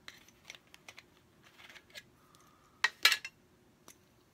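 Handling of a metal tin box and the fidget spinner inside it: scattered light metallic clicks and clinks, with a louder clatter about three seconds in.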